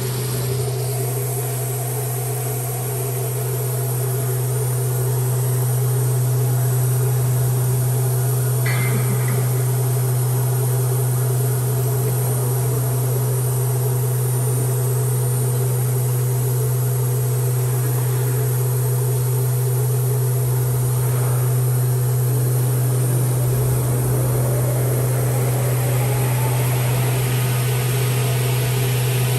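A 4-axis CNC machining centre for aluminium profiles running with a steady low hum and a few steady higher tones. There is a brief short sound about nine seconds in, and a faint rising pitch in the last few seconds.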